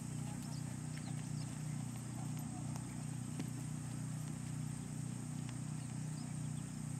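A steady low hum, with faint hoofbeats of a horse moving over the sand arena footing.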